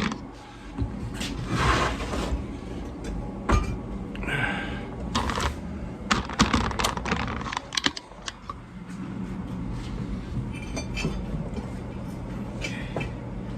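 Irregular knocks, clicks and short scrapes of a lawn tractor's tire and wheel being handled and worked by hand, over a steady low hum.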